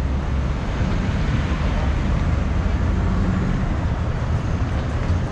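Road traffic: vehicles running past on the street, a steady noise heaviest in the low end.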